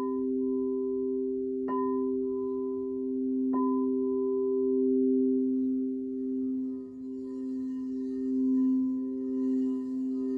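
Crystal singing bowls ringing: two steady low tones sound together and swell and ebb slowly. Two light strikes, about two seconds apart, add a higher ring.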